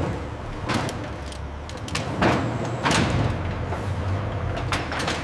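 Steady low mechanical rumble with four short swishing noises spread through it, the loudest about two and three seconds in.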